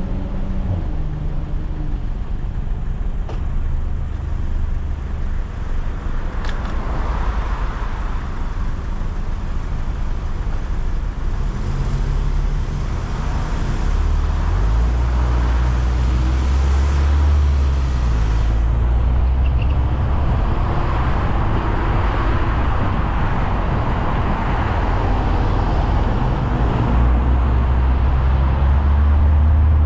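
Car engine running at a standstill in traffic, then pulling away about halfway through and driving on with steady engine hum and tyre and road noise.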